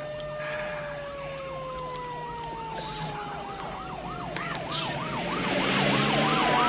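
Emergency vehicle sirens: one steady wail sliding slowly down in pitch, joined about a second in by a fast-warbling siren at about three cycles a second that grows louder toward the end, over a rising hiss.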